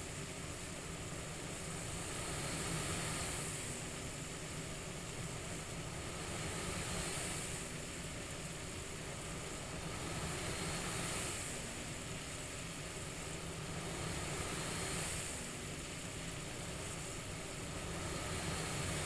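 CPAP-style airflow hiss, a steady rushing white noise that swells and eases in a slow breathing rhythm, about once every four seconds.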